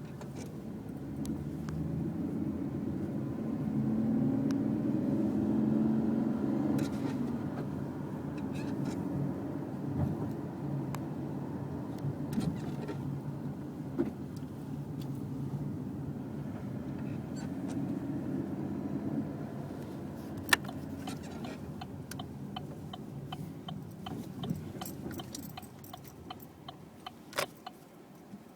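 Car engine running, with a weird noise that the owner puts down to the clutch. The engine note rises and falls twice, and several sharp clicks and ticks come in the last third.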